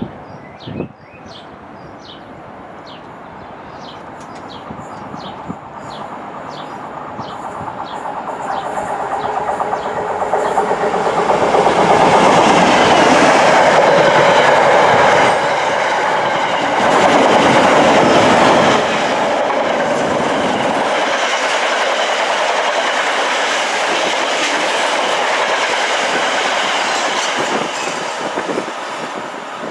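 Class 66 diesel freight locomotive, its EMD two-stroke V12 engine, approaching and passing at speed, loudest about twelve seconds in, followed by a long rake of container and tank wagons running past on the track, easing off near the end.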